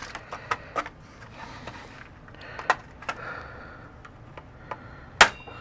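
Sharp plastic clicks and snaps as the retaining clips of an instrument cluster's plastic housing are pried loose from its circuit board with a small screwdriver. The clicks come singly, a few seconds apart, with the loudest snap about five seconds in.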